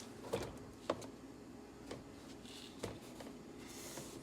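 Light plastic knocks and clicks, about four in the first three seconds, as a car's interior door trim panel is handled and fitted onto the door, then a soft rustle of the panel sliding near the end.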